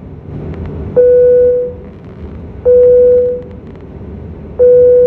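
Airliner cabin chime sounding three times, a single low ding roughly every two seconds, each ringing out within a second, over the steady hum of the cabin.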